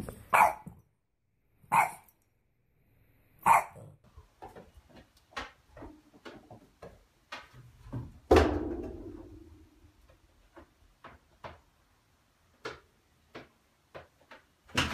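A French bulldog barks three short times in the first few seconds. Then comes a run of sharp clicks and taps, with one loud knock about 8 seconds in that rings on for a second or so like struck sheet metal.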